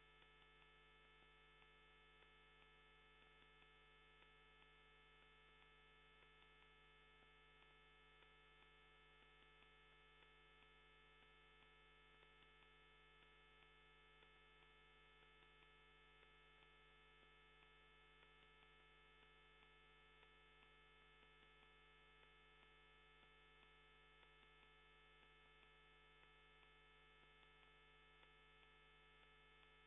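Near silence: a faint, steady electrical hum made of several fixed tones, unchanging throughout.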